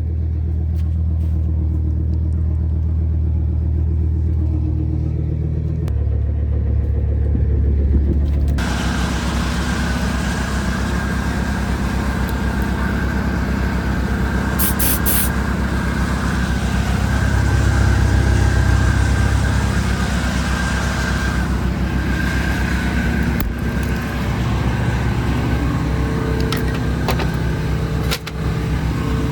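Engine running steadily under load, its speed stepping once about six seconds in; from about eight and a half seconds a louder, rushing mechanical noise joins it, swelling again around two-thirds of the way through.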